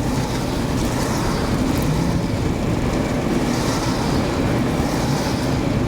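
Steady noise from a moving or idling vehicle, mixed with wind coming in through an open window.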